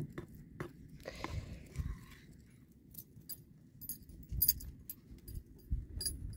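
Faint scattered clinks and light scraping of a wooden spoon working through cooked rice in a skillet.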